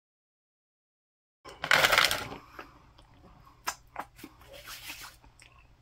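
About a second and a half of dead silence from an edit cut, then a short, loud burst of rustling noise lasting under a second. A few light clicks and faint rustling follow.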